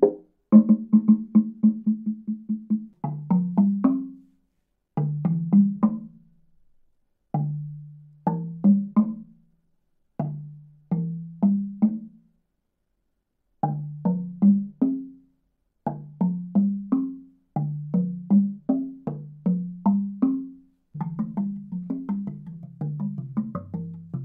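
Wooden slit-tongue box drums struck with a marimba-style mallet, playing short phrases of low, ringing notes with brief pauses between them. A fast roll on one note comes first, and a quicker run of notes near the end.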